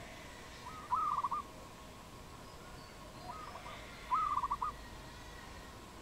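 A dove cooing: two quick runs of rapid, rolling coo notes, about a second in and again about four seconds in, each led by a shorter softer note.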